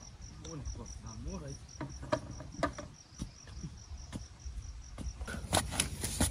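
Insect chirping in a steady rhythm of about four high pulses a second, stopping about five seconds in. Scattered sharp clicks and knocks run alongside it and come more often near the end.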